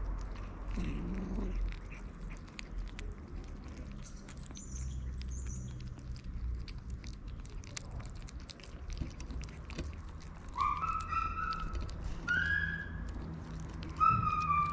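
Kittens eating wet cat food from a plate: quick wet chewing and lapping clicks. In the last few seconds a kitten gives about four short meows, the last one the loudest.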